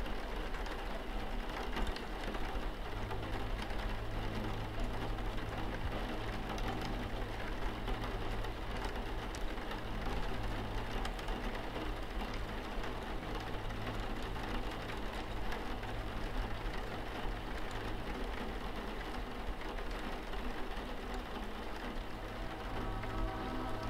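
Steady rain pattering on window glass, with a low hum underneath. Music starts to come in near the end.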